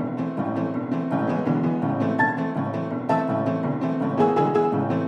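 Instrumental background music with piano and low strings, playing to a steady beat.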